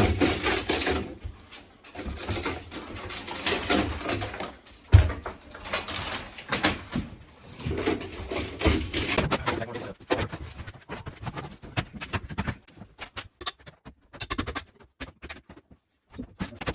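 Irregular scraping, rustling and knocking from hand demolition work, with one heavy thump about five seconds in.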